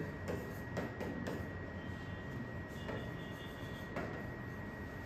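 Faint, scattered taps and scrapes of a stylus writing on the glass of an interactive touchscreen board, over quiet room tone with a thin steady high whine.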